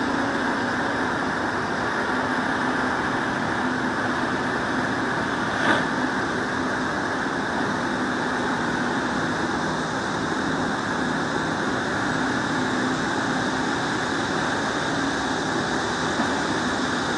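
Steady drone of distant engines with a faint low hum running under it, and one short knock about six seconds in.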